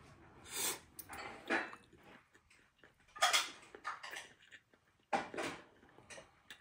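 Spaghetti being slurped off a fork in several short sucking slurps, with a fork clicking against a plate.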